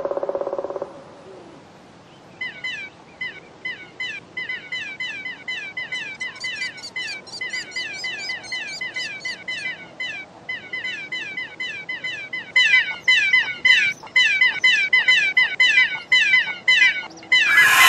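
Baby pterosaur chicks in a cartoon nest cheeping like begging bird chicks: many short, high chirps a second, each falling in pitch. They begin about two seconds in and get louder in the second half. A short low buzzing tone fades out in the first second, and a loud burst breaks in at the very end.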